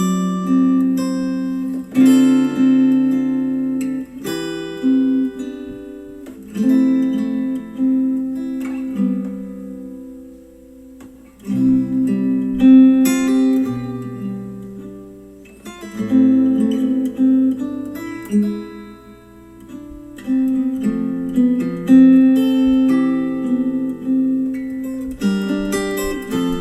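Acoustic guitar music played back through a JBL Charge 4 Bluetooth speaker. The guitar strums chords that ring out and fade, with a brief lull about ten seconds in.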